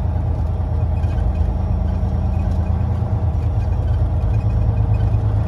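Semi-truck's diesel engine running with a steady low drone as the truck moves slowly.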